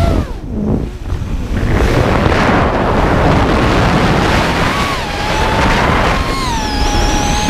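A 5-inch FPV quadcopter's motors and propellers whining under a loud rush of wind on the microphone. After a brief lull, the whine's pitch rises and falls with the throttle.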